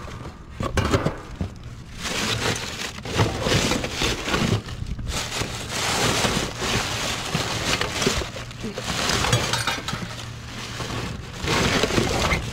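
Plastic bags, crinkled paper packing and cardboard rustling and crackling as gloved hands dig through a dumpster's contents, with many quick irregular crackles.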